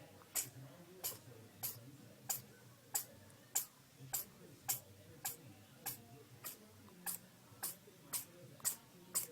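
A steady series of short, sharp ticks, about three every two seconds, over a faint low background hum.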